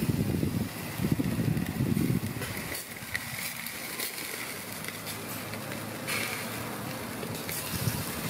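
Wind buffeting the microphone in gusts, strongest in the first two seconds, over the faint sizzling and crackling of quail cooking on a charcoal grill.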